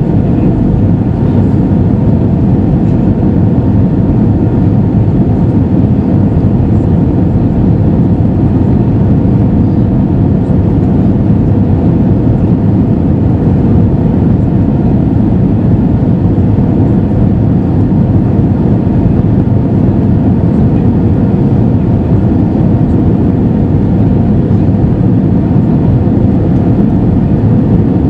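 Steady in-cabin noise of an Airbus A320 in descent: the rush of air over the fuselage and the hum of its CFM56-5B engines, heard from a window seat over the wing. A faint steady whine sits above the low rumble.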